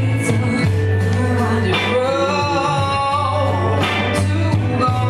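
Live band music: a woman singing into a microphone over electric guitar and keyboard, with low sustained bass notes and a sharp percussive hit about every two seconds.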